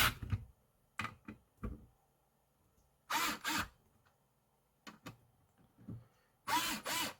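Screwdriver driving the spring-loaded screws of a CPU cooler, in two short runs of about half a second each, with small clicks and taps of metal and plastic in between.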